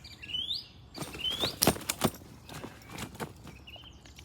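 Shrill parakeet calls rising in pitch, twice in the first second and a half, with a quick run of sharp clicks and knocks between about one and three seconds in that is the loudest sound.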